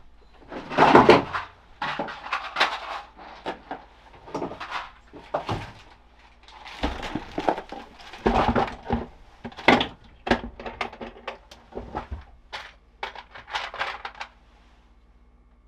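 Hands working on wiring: an irregular run of clicks, knocks and rustles as wires, connectors and tools are handled, with the loudest knocks about a second in and near the middle.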